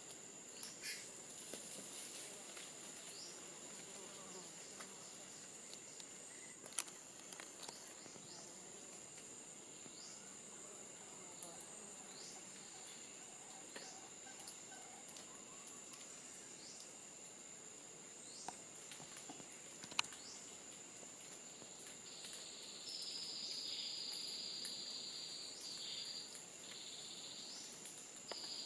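Tropical forest insect chorus: a steady high-pitched drone with short chirps repeating every second or two, and a louder buzzing call starting about three-quarters of the way through and returning near the end. Two sharp clicks stand out, one about a quarter of the way in and one in the middle.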